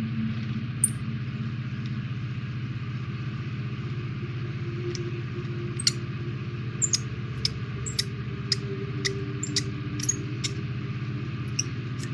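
Light clicks and taps of a plastic model kit part being handled and fitted, about a dozen in the second half, over a steady low hum.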